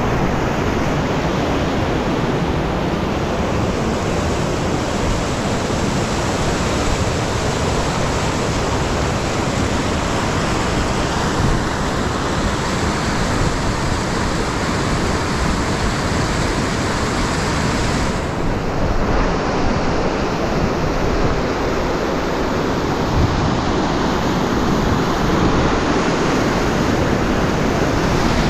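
Fast-flowing mountain river rushing, loud and steady, heard from close by. The hiss of the water dulls slightly about two-thirds of the way through.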